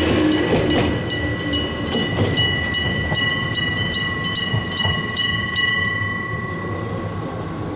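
Railway-crossing electric bell striking rapidly, about three strokes a second, over the low rumble of a passing train. The bell stops about six seconds in and its ring dies away.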